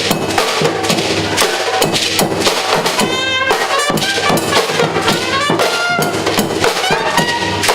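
Live band playing Latin music: dense, driving drumming and percussion with horn lines over it.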